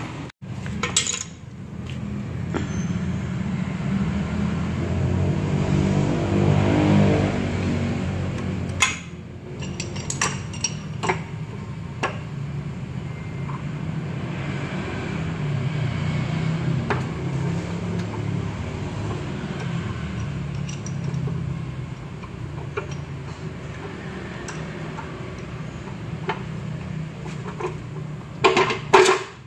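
Metal clinks and knocks of a wrench working on the tie rod of a removed steering rack, scattered and irregular and busiest near the end, over a steady low workshop hum.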